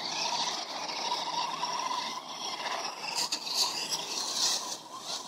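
Radio-controlled truck driving on asphalt: a steady motor whine with scraping noise that gets louder in the second half.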